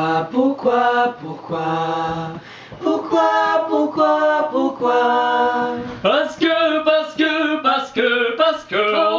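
A small mixed choir of women and a man singing a cappella in harmony, with no instruments. Long held notes on a repeated "Pourquoi?" give way about six seconds in to quicker syllables ("Parce que").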